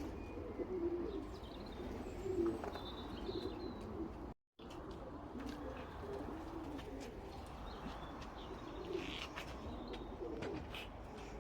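Racing pigeons cooing, many overlapping low coos, with a few higher chirps. The sound cuts out completely for a moment a little after four seconds in.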